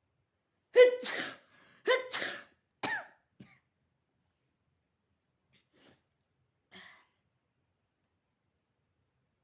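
A person sneezing twice, about a second apart, then a shorter third burst; the sneezes are set off by tickling the nose with a rolled-up paper stick.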